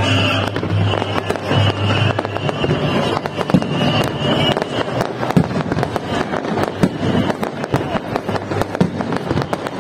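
Fireworks display: a dense, irregular volley of sharp cracks and bangs from crackling aerial shells, growing thicker about halfway through.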